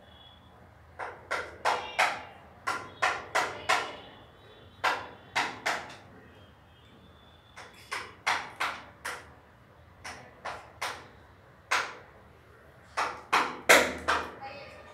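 Hand claps: a series of sharp claps in uneven groups of two to five, the loudest near the end.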